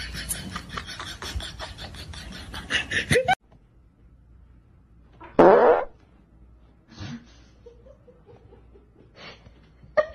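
A loud fart about five seconds in, lasting about half a second, from the person the small dog is lying on. Before it, a steady pulsing noise cuts off suddenly, and two fainter short sounds follow it.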